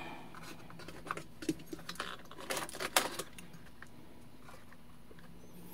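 Plastic wire-harness connectors being pulled off a rice cooker's control board and the board being handled: a string of small clicks and rattles in the first three seconds, then only faint handling.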